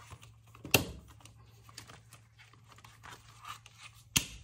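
Laminated pages and plastic sleeves rustling as an A6 six-ring binder is handled, with two sharp snaps, about a second in and near the end, of the binder's metal rings opening and closing.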